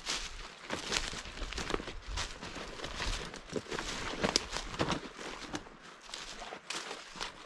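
Footsteps of a person walking through woodland undergrowth, irregular steps about two a second, with brush and forest litter crunching underfoot.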